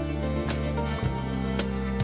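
Background instrumental music: sustained notes changing every second or so, with a few sharp note attacks.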